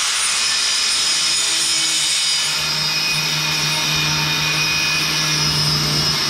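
Electric grinder with a cut-off wheel running at speed and cutting through 2-inch mandrel-bent exhaust tubing: a steady whine over a hiss, the low tone growing stronger about two and a half seconds in as the wheel bites into the metal.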